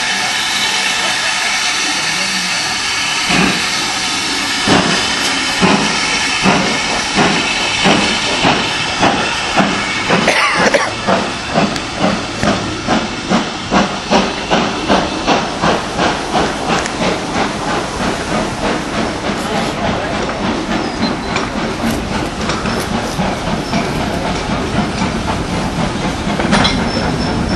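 GWR steam locomotive pulling away: a steady hiss of steam, with exhaust beats that begin about three seconds in and quicken to about two a second, then run together into a faster chuffing.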